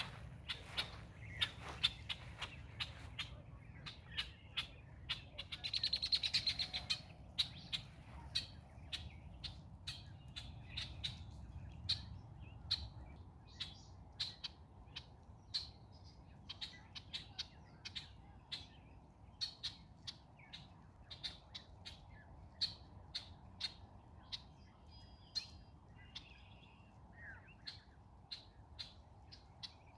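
Red-winged blackbirds calling with short, sharp chips repeated throughout, and one longer call about six seconds in.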